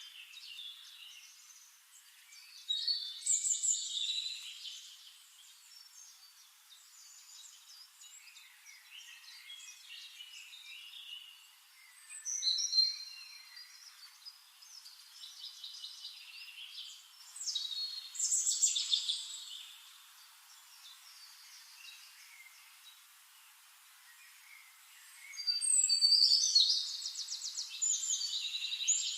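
Birds singing: bouts of high chirps and warbling phrases come and go, with a fast trill near the end. The sound is thin, with nothing low in it.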